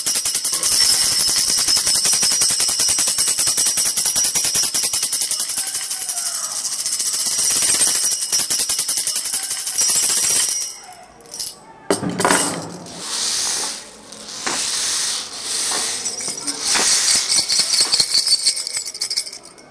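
Music made of rapid shaken jingling percussion, a dense steady rattle for about ten seconds; after a brief break it turns into a series of separate swelling hissy shakes, each about a second long.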